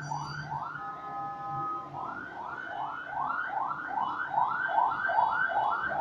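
Emergency-vehicle siren in yelp mode: rapid rising sweeps, three to four a second, broken about a second in by a steady blaring tone lasting about a second.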